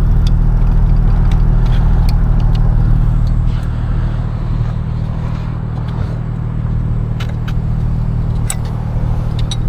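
Vehicle engine idling steadily close by, with a few light clicks about seven and eight and a half seconds in.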